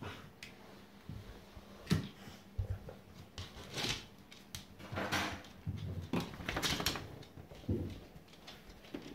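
Standard schnauzer rolling and rubbing its head and body along a hard wooden floor to scratch ears that are tickly after eardrops. Irregular scuffing, scraping and knocking of fur and body on the floor, with claws clicking.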